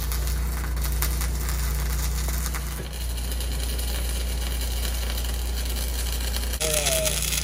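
Electric arc welding on steel posts and beams: the steady crackling hiss of the welding arc over a low, even machine hum, louder near the end.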